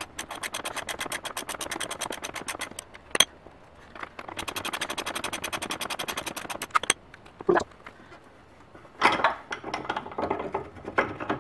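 Air ratchet running in two bursts of rapid, even rattling as it spins the front axle out of a Buell XB, with a few separate metal clinks near the end.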